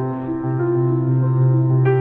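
Background music with slow, held notes.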